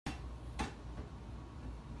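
Faint low hum with one light knock about half a second in, from a cat pawing at the mail slot of a front door.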